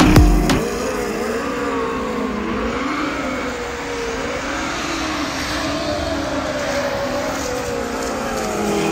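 Ninebot GoKart Pro electric go-kart driving, its motor whining in a pitch that wavers slowly up and down with speed, over a steady hiss. A music track with a beat cuts off about half a second in.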